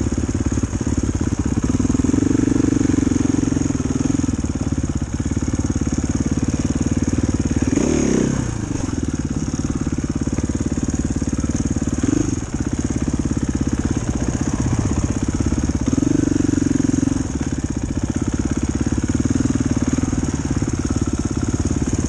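Dirt bike engine idling, with a few brief swells in engine note.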